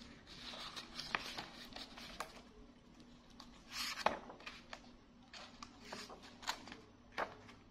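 Paper pages of a large hardcover picture book being flipped by a monkey: rustling and flapping with scattered light clicks and slaps as pages settle, and a louder swish about four seconds in.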